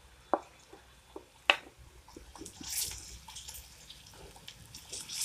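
Scattered clicks of a spoon against a steel kadai as ginger-garlic paste goes into the hot oil, then from about two and a half seconds in a soft sizzle and stir as onions and peanuts fry while a wooden spatula mixes them.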